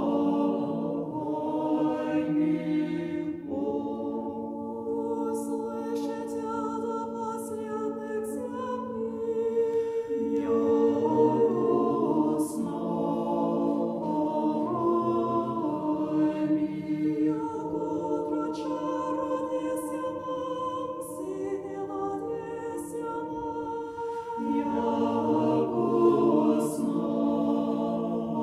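Mixed choir singing a cappella, holding sustained chords that shift every few seconds, with the s-sounds of the words heard now and then.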